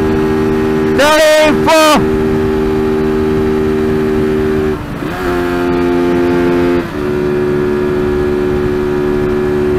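TVS Apache RTR 200's single-cylinder engine running steadily near top speed in fifth gear, with wind noise. About five seconds in the throttle eases off and the engine note changes and dips briefly as the bike slows. The original note is back after about seven seconds.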